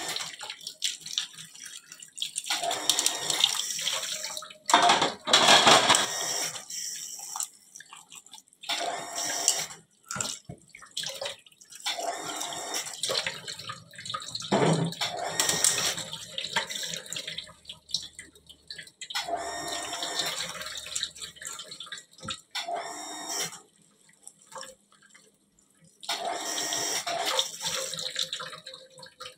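Tap water running into a stainless steel sink while dishes are washed by hand: a plastic container and an aluminium tray are scrubbed and rinsed under the stream. The splashing swells and drops off unevenly, with a few short knocks.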